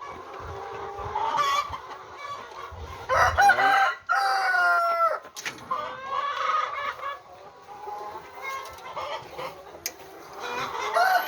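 A flock of laying hens clucking and calling over one another, with a few longer, drawn-out calls in the middle.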